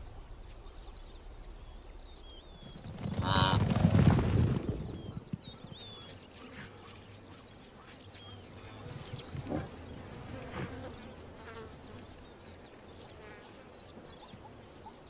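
Faint high chirps sound on and off. About three seconds in comes one loud pitched animal call that rises in pitch and lasts about two seconds.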